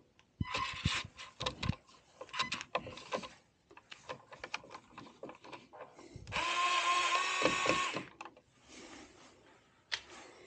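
Screwdriver backing a screw out of a water softener's control head. A run of clicks and rattles comes first, then, about six seconds in, a steady whir lasting under two seconds.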